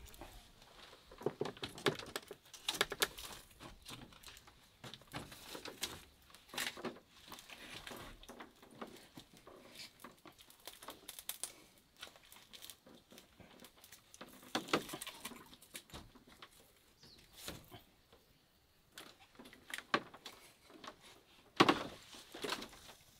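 Irregular light clicks and knocks of split bamboo sticks being handled and set at a log fire, with the sharpest knock near the end.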